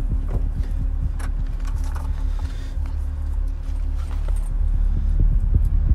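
Steady low drone of an airliner cabin in flight, with scattered small clicks and rustles from hands handling a cardboard box of modelling clay.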